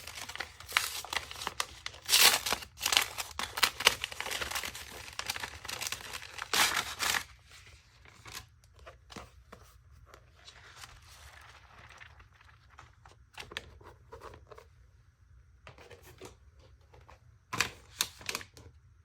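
Packaging crinkling and tearing as a planner is unwrapped by hand. The noise is loud and dense for the first seven seconds or so, drops to scattered soft rustles, and has a brief loud burst shortly before the end.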